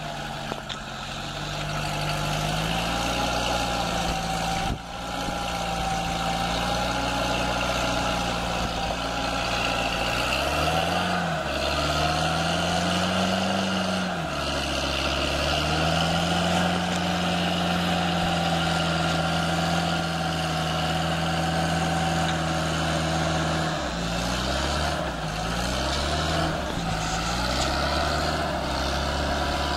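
A UAZ off-roader's engine running hard under load as it pulls through deep swamp mud. Its pitch swells up and back down a couple of times around the middle, then settles before a quick series of rev changes later on.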